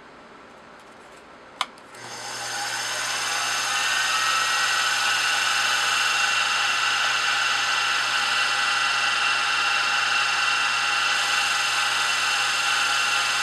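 Milling machine spindle switched on with a click, spinning up over a couple of seconds and then running steadily with a whine, as a twist drill is fed into the crank casting's hub to drill a 1/4-inch hole.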